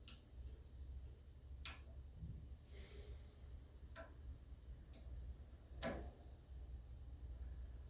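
A few sharp clicks, about two seconds apart, over a faint low hum.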